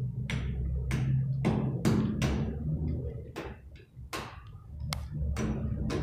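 Hammer striking a chisel against a rough concrete slab, chipping the concrete: sharp hits about two a second, with a short break around the middle.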